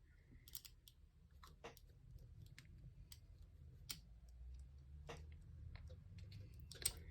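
Faint, scattered clicks of a metal lock pick probing and lifting the pins inside a pin tumbler lock.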